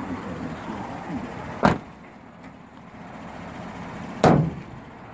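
Two sharp thuds from the body of a 2014 GMC Sierra pickup, about two and a half seconds apart, the second louder: its doors or panels being shut.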